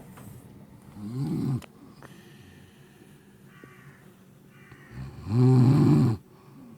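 A woman snoring in her sleep: two snores about four seconds apart, the second longer and louder than the first.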